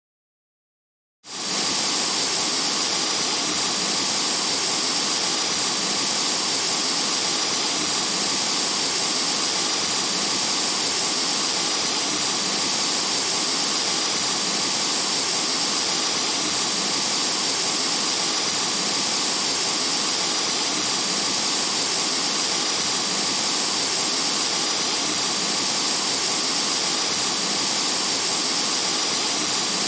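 Water rushing at heavy flow from an outdoor faucet and hose under pressure, a loud steady hiss that starts suddenly about a second in.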